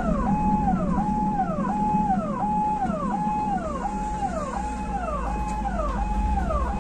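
Ambulance siren sounding in an even repeating cycle, a held note that falls away in pitch about every 0.7 s. Under it is the low rumble of the car's engine and road noise, heard from inside the cabin.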